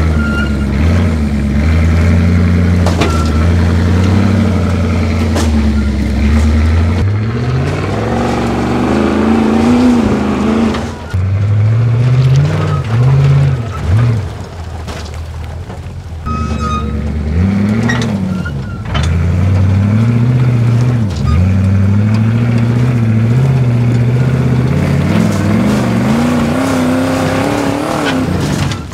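Heavy off-road truck engine working hard under load, revving up and falling back again and again as the truck climbs and manoeuvres, with a couple of brief drops to a lower note partway through.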